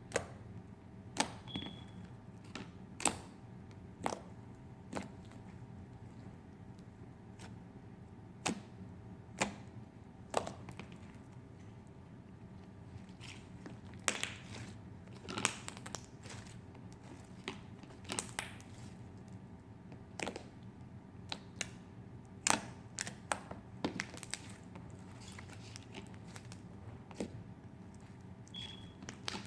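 Slime being squeezed and poked, giving irregular sharp clicks and pops over a steady low hum.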